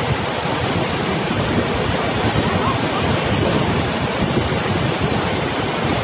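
Muddy flash-flooded river rushing past in a loud, steady noise of churning floodwater.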